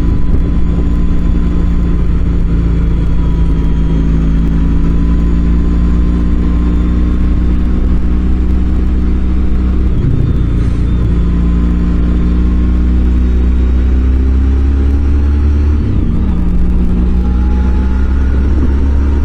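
Suzuki C50T Boulevard's V-twin engine running at a steady cruise under way. Its pitch breaks briefly about halfway through and again near the end, then settles back.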